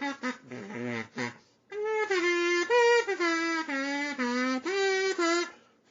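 Sing-A-Tina kazoo being sung into, playing a tune in buzzy notes that step up and down in pitch, with a short break about a second and a half in.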